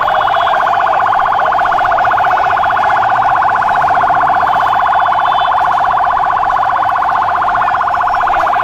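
A siren sounding a loud, steady, rapidly pulsing tone that holds one pitch without rising or falling.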